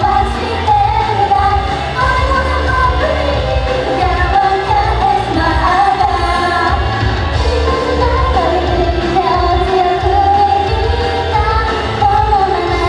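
Live idol pop song performance: a high vocal melody sung over a loud pop backing with a steady pounding bass, filling a large hall.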